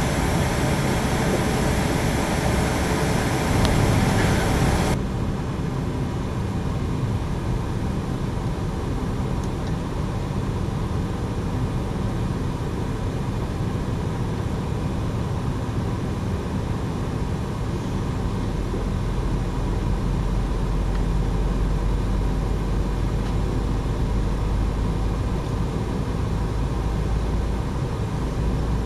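Steady hum and air rush inside a parked Boeing 747's cabin, heard at the window. About five seconds in the sound changes abruptly to a duller, slightly quieter hum, and a deeper rumble comes in about two-thirds of the way through.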